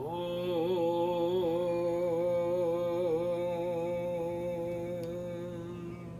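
A man's voice chanting a single long held note, steady in pitch with slight wavers, fading out near the end.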